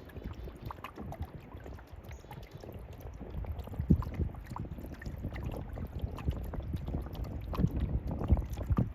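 Canoe being paddled: water sounds from the paddle strokes and a few sharp knocks of wood on the hull, over a low rumble of wind on the microphone.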